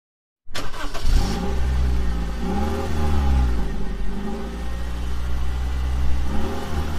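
Motorcycle engine idling and revved several times, its pitch rising and falling slowly with each blip of the throttle. The sound starts abruptly about half a second in.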